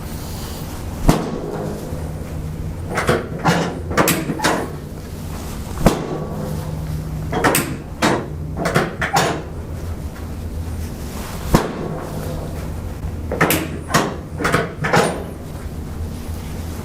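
Chiropractic drop table giving drop-piece adjustments to the low back and sacrum: repeated sharp clunks as the padded section is set and snaps down under the thrust. There are single loud clunks about one, six and eleven seconds in, with clusters of quicker knocks between them.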